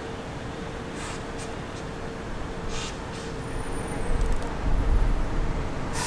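New York City subway train approaching on the open-air line: a low rumble of wheels on rail that swells about halfway through, over a steady background with a faint steady tone.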